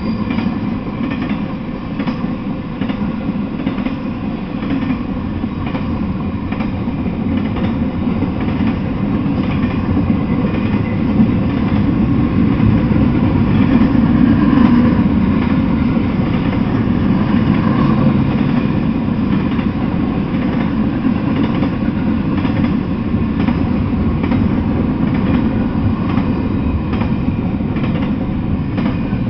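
Double-stack intermodal container freight train rolling past: a steady rumble of wheels on rails with a light, irregular clatter, swelling a little around the middle.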